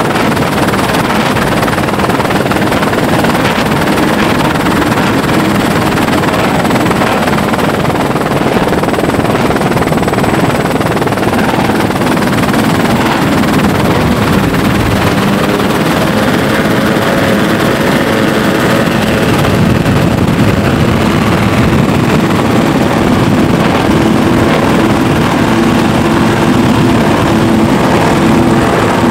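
Loud, steady roar of a helicopter's rotor and turbine mixed with the engines of a Tullio Abbate offshore powerboat running flat out; in the last third the boat's engine note comes through more clearly and the sound grows a little louder.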